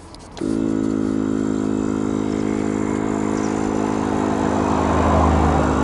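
Portable car air compressor switching on about half a second in and then running with a steady, loud drone. It is inflating a bicycle's rear tyre that has been going flat.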